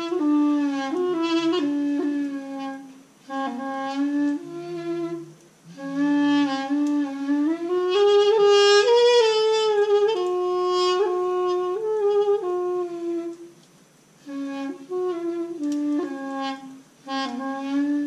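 Balaban, a double-reed woodwind, playing a slow melody in short phrases with brief pauses between them, climbing to its highest notes about halfway through.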